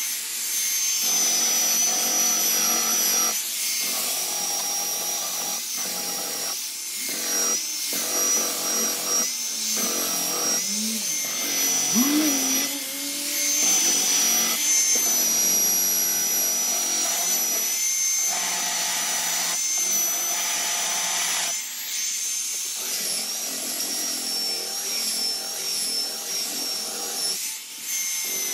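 Electric hand sander running steadily against a glued-up maple and mahogany guitar body, sanding the overhanging edges flush. There is a steady high whine, and the sound dips briefly every second or two.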